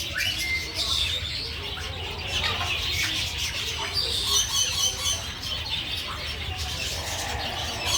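Several small birds chirping and singing at once, overlapping series of quick high notes, with a rapid run of repeated notes about halfway through.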